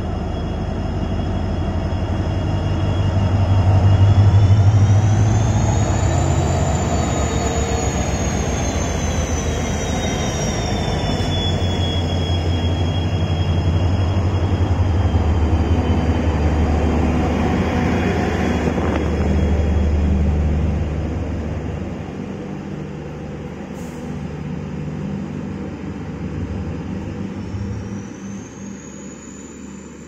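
EMD WDP-4D diesel-electric locomotive with its two-stroke V16 engine accelerating a passenger train past, loudest about four seconds in, with a high whine gliding up and then slowly down. The coaches then roll by with a quick, rhythmic clatter of wheels on the rails, which fades toward the end.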